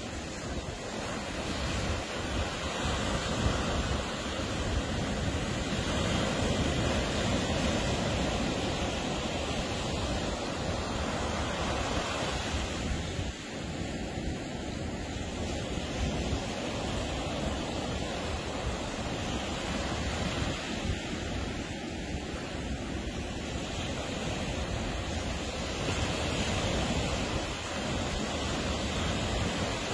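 Atlantic surf breaking and washing up the beach, swelling and easing every few seconds, with wind buffeting the microphone.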